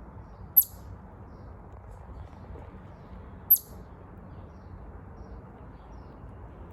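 Chipmunk giving two single sharp, high 'chip' calls about three seconds apart, each dropping quickly in pitch. This is the call chipmunks use to announce a predator or advertise their area. A faint steady rumble lies underneath.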